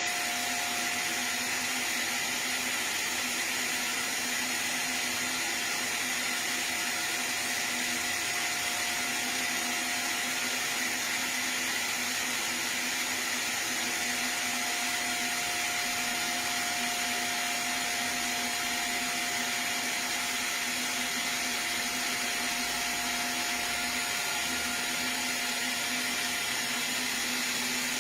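Disk mastering lathe running: a steady, even whirring hiss with a few constant hum-like tones, unchanging throughout.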